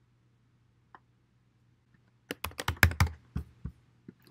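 Typing on a computer keyboard: a quick run of about nine keystrokes lasting about a second and a half, after two faint single clicks in the first second.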